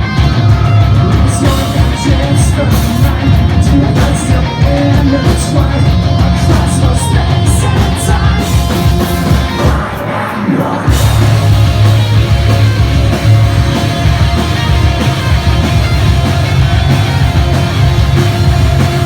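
A post-hardcore band playing live and loud: distorted guitars, drums and bass with singing and yelled vocals. About ten seconds in, the drums and bass drop out for about a second, then the full band crashes back in.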